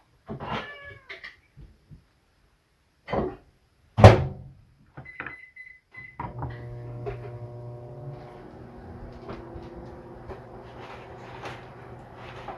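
Hand tools handled on a wooden desk: a few sharp knocks, the loudest about four seconds in, as flush cutters and a solder spool are picked up and moved. Near the start there is a short wavering cry, and from about six seconds a steady low hum.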